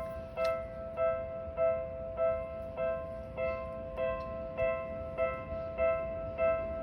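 Japanese railway level crossing's electronic alarm bell ringing: a two-tone ding repeating steadily, a bit under twice a second, as it does while the crossing is closed for a train.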